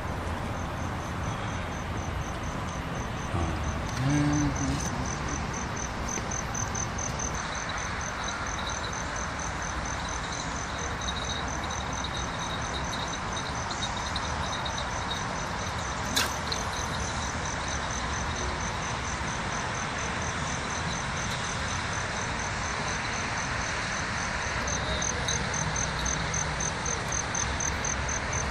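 Crickets chirping in a steady, even pulse, joined by a second, lower-pitched insect about a quarter of the way in, over a constant background hum. A short low thump about four seconds in and a sharp click past the halfway point.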